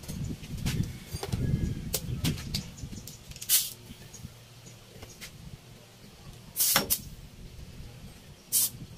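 Three short blasts of compressed air from an air-hose nozzle, the longest and loudest about two-thirds of the way through, blowing air into a motorcycle monoshock to push its piston up. Light knocks and clatter of metal parts on the workbench come in the first few seconds.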